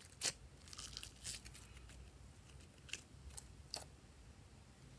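Glossy slime squeezed and kneaded between the hands, trapped air giving off sharp little pops and clicks: a strong one about a quarter second in, a quick cluster around a second in, and a few single pops between about three and four seconds.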